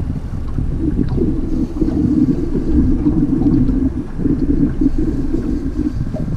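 Wind buffeting the microphone aboard an open fishing boat, a dense low rumble.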